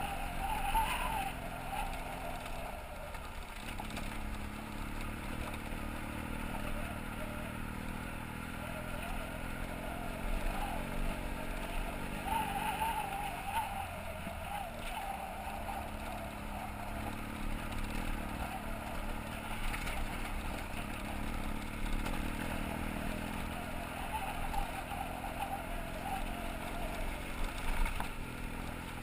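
BMW F800GS parallel-twin engine running steadily under way on a gravel road, mixed with wind and road noise. The engine note wavers up and down with the throttle.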